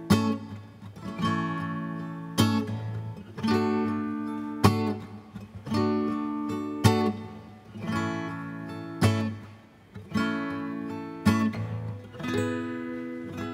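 Solo acoustic guitar strummed live, chords ringing out about once a second with a sharper accented stroke every other chord, in a steady rhythm: a song's instrumental intro with no voice yet.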